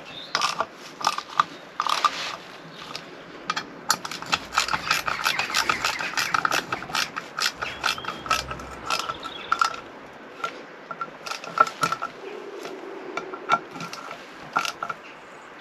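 Hand ratchet clicking in quick runs as small screws are wound down a little at a time into an aluminium motorcycle engine casing.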